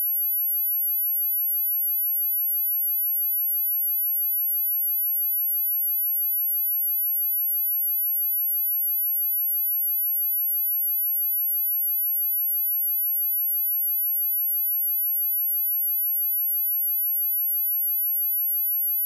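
A pure sine-wave test tone at 11697 Hz, a single steady high-pitched whine held at constant level without change.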